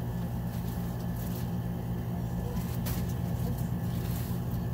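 Steady low machine hum, even throughout, with a couple of soft rustles as a fleece blanket is spread on a bed.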